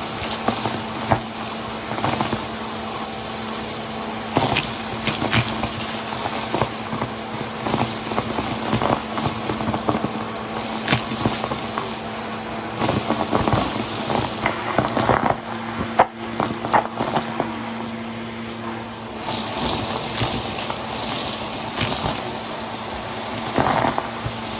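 Bissell vacuum cleaner running steadily, its motor humming, with frequent crackling and crunching as debris is sucked up.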